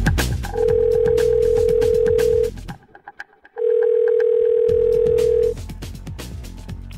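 Telephone ringing tone heard down the line: two long, steady beeps of about two seconds each with a short pause between, over background electronic music with a beat.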